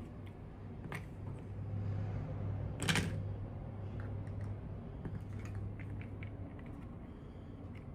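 Small toy packaging being handled: scattered light clicks and taps, with a sharp click about a second in and a short crackle, like plastic crinkling, about three seconds in, over a steady low hum.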